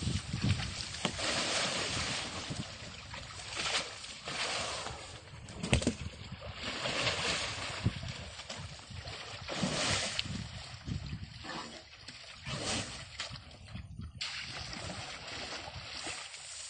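Muddy water sloshing and splashing around an Asian elephant as it wades at the edge of a pool and climbs out onto the bank, in irregular surges.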